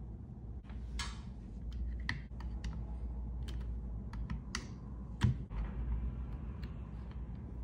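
Gloved hands handling a power bank, cables and phones: scattered light clicks and taps of plastic, with one heavier knock about five seconds in, over a low steady hum.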